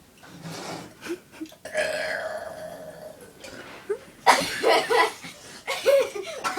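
A girl's deliberate burp, long and drawn out for well over a second, followed by several louder short vocal sounds near the end.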